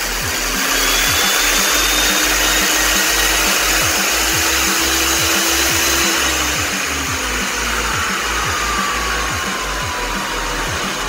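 Ametek vacuum-loader motor running at full speed: a loud high whine and rushing hiss that climbs in pitch over the first few seconds and sags slightly in the second half. It runs, but its carbon brushes spark heavily, which the owner takes as the sign of damaged brushes needing replacement.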